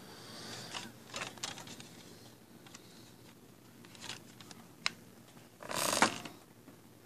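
Handling noise: scattered small clicks and knocks of items being moved about on a wooden table, then a louder rustling scrape lasting about half a second, near the end, as the handheld phone is swung around.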